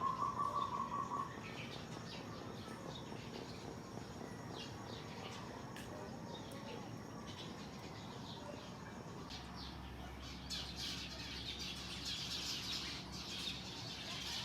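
Small birds chirping: a quick run of rapid repeated notes right at the start, then scattered short high chirps that grow busier near the end.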